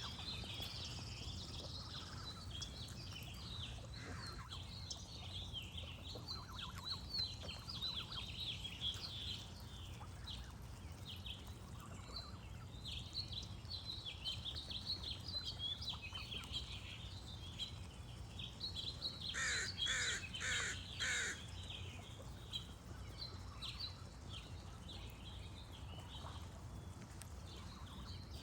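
Small birds chirping and singing densely, over a steady low background rumble. About two-thirds through, a goose honks four times in quick succession, the loudest sounds here.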